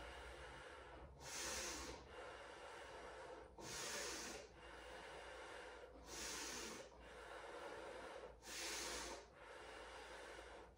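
A woman's slow, deep yoga breathing while holding a pose. Four louder rushes of air come about two and a half seconds apart, with softer breath between them.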